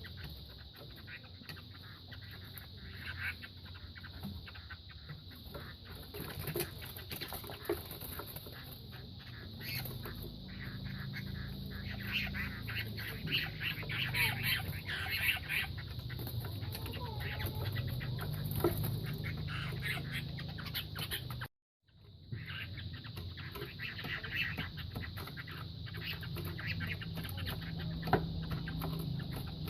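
Two Vietnamese fighting cocks sparring: scuffling with many short knocks and pecks and occasional clucks, busier in the middle, over a steady high tone. The sound drops out for a moment about two-thirds through.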